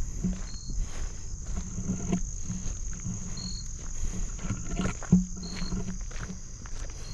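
Footsteps and rustling through marsh vegetation over a steady high chorus of late-summer insects such as crickets, with a short high chirp every couple of seconds. A low droning hum comes and goes, with the loudest rustle or knock about five seconds in.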